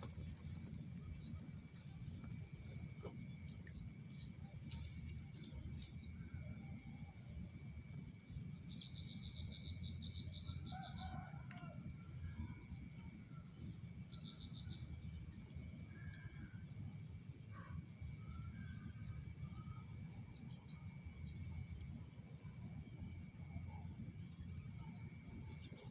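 Quiet rural pond-side ambience: a steady high insect drone over a low rumble of wind on the microphone, with scattered short bird calls and a rapid trill heard twice, about a third of the way in and again just past halfway.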